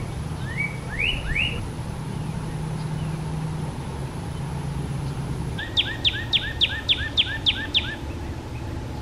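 A songbird singing: a few quick upward-slurred whistles early on, then a fast run of about nine sharp down-slurred notes, roughly four a second, over a steady low rumble.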